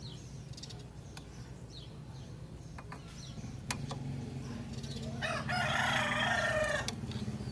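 A rooster crows once, a single call of under two seconds starting about five seconds in. Beneath it are a steady low hum and a few light clicks.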